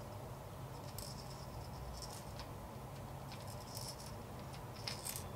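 Faint, scattered light clicks and rattling as a crankbait lure is turned in the hand and brushed with a glitter coat, over a low steady hum.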